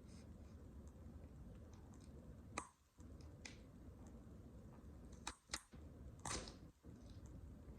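Vegetables crushed under a high-heeled boot: a few sharp crunches and snaps. One comes about a third of the way in, then a quick pair past halfway and a longer crackling crunch soon after.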